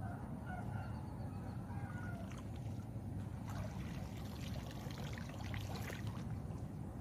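Pond water splashing and dripping as a cast net is hauled up and lifted out of the water, with a cluster of splashes in the middle seconds, over a steady low rumble.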